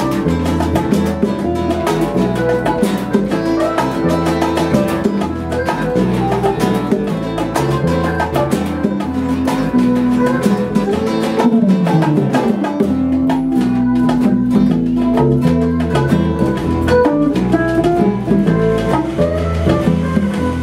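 Instrumental Cuban salsa-style jam: electric bass, electric and acoustic guitars and bongos play together with no singing. About twelve seconds in, a line slides down in pitch.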